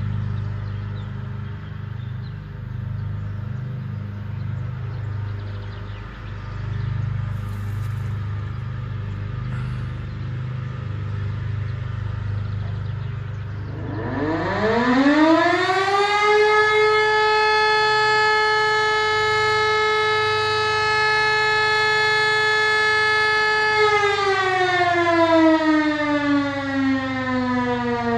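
Hörmann E57 electric motor-driven fire siren on a test alarm. Over a low rumble it spins up about halfway in, its pitch rising quickly to a steady, rich tone held for several seconds, then winds down with slowly falling pitch as the rotor coasts.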